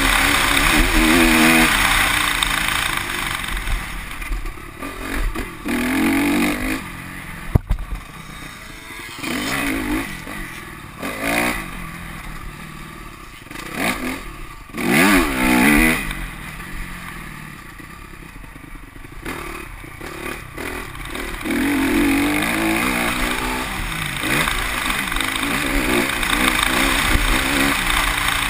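2010 Honda CRF250R's single-cylinder four-stroke engine under way on a dirt track, revving up and backing off again and again as the rider works the throttle. There is a quieter, lower stretch past the middle, and one sharp knock about eight seconds in.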